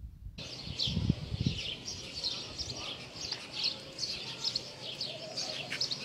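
Small birds chirping: repeated short, high chirps, about two or three a second, starting suddenly just after the beginning. Two dull low thumps come about a second in.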